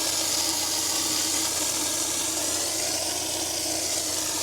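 Water rushing steadily from a canal-side water point whose pipe is broken, a continuous hiss.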